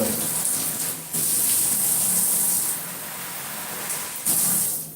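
Water spraying from an AOLECA chrome-plated ABS shower head, a steady hiss. The spray changes strength as the spray setting is turned: it dips briefly about a second in, runs softer for a while past the middle, comes back full, then drops away right at the end.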